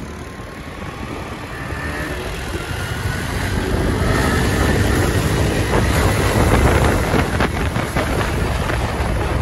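Motorcycles riding along a road: engine drone with wind buffeting the microphone, growing louder over the first few seconds and then holding steady, with a faint whine rising and falling with engine speed.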